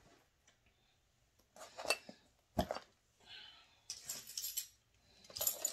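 Handbag contents being handled and set down on a table: a few knocks and clinks with rustling in between, the sharpest knock about two and a half seconds in.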